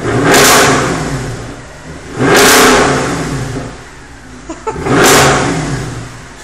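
Mercedes-AMG C63 V8 engine revved three times in a row, about two seconds apart, each rev rising sharply and then dying back toward idle.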